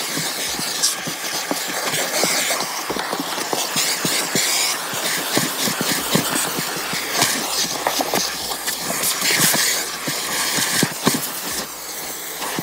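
Vacuum cleaner running with a narrow crevice nozzle pushed over car floor carpet: a steady loud suction hiss with many small clicks and crackles as the nozzle works the carpet.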